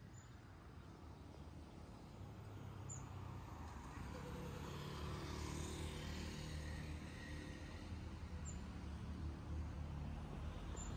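Street traffic below: a low rumble with a car passing by about halfway through, the sound swelling and fading.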